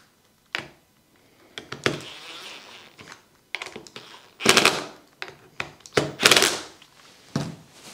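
Cordless drill-driver driving screws into plywood, its motor buzzing in several short runs, the two loudest in the second half.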